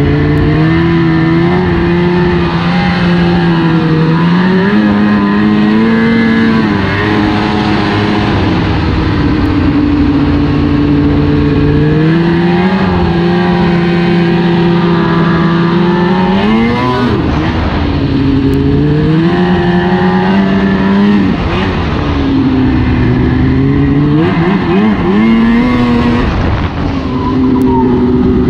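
2002 Arctic Cat ZR800 snowmobile's two-stroke twin engine running under way, its pitch climbing and dropping again and again as the throttle is worked. The swings grow sharper and quicker in the last third.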